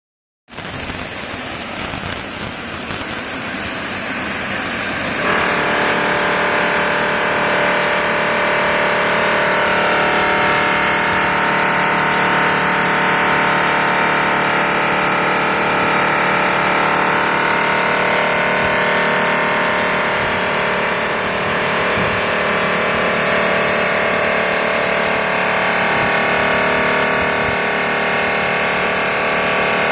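CNC outer-polishing machine for aluminium cookware running, its polishing wheels working a pot. A rough, steady mechanical noise jumps louder about five seconds in and settles into a steady whine of several held tones.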